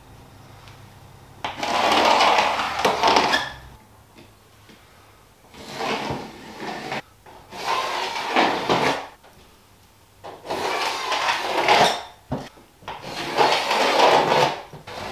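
Five scraping strokes, each one to two seconds long, of a pencil drawn along a spirit level against a boarded wall to mark a level line.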